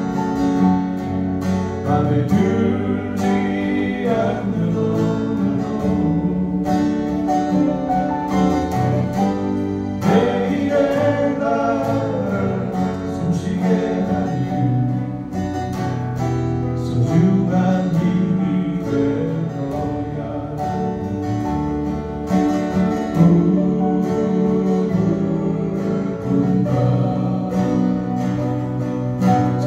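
Small band playing a song live: acoustic guitars with electric bass and keyboard, and voices singing over them.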